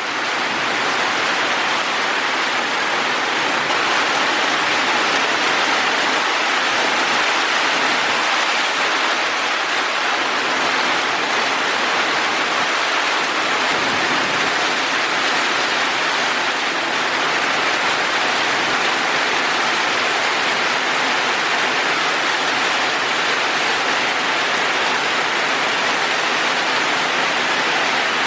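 Rain pouring down steadily, a dense even hiss that fades in at the start and then holds without change.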